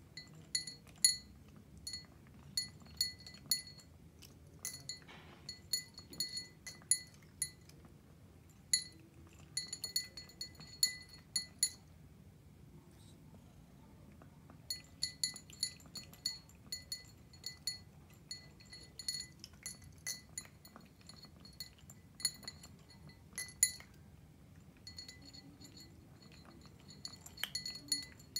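Persian cat eating dry kibble from a small glass bowl: irregular runs of light, ringing glass clinks as kibble and teeth knock the bowl, with a pause of a couple of seconds about halfway through.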